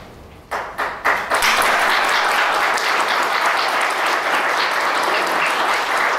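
Audience applauding: a few scattered claps about half a second in, swelling within a second into steady applause.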